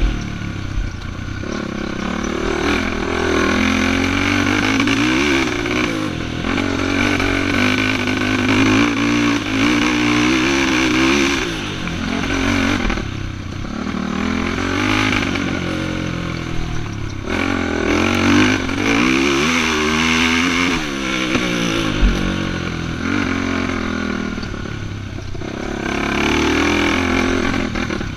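Racing ATV engine revving up and down over and over as the quad is ridden hard through a course, the pitch climbing and dropping every few seconds. A single sharp knock stands out about three quarters of the way through.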